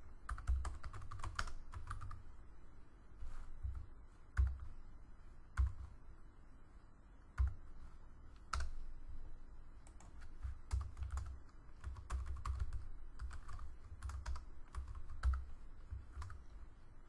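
Typing on a computer keyboard: irregular bursts of keystrokes, sparser for a few seconds in the middle.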